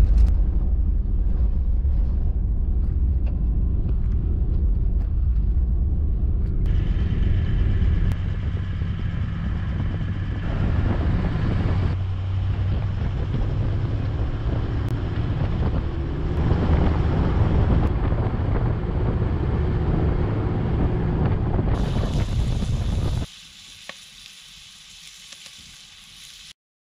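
Toyota LandCruiser four-wheel drive under way on gravel and dirt roads: a steady low rumble of engine and tyre noise with some wind, changing abruptly at several cuts. Near the end it drops to a much quieter background, then cuts off.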